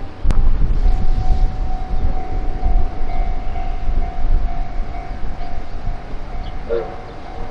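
Railway level-crossing warning bell ringing a steady, repeating tone that starts about a second in. A heavy rumble of wind on the microphone runs under it, and there is a sharp click near the start.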